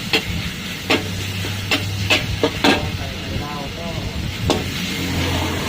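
Food sizzling in hot oil, with several sharp clacks of a metal spatula striking the pan as it is stirred.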